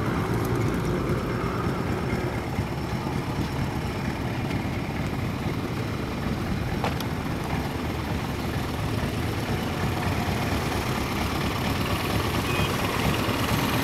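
Steady low rumble of motor vehicle engines and road traffic, with one faint click about seven seconds in.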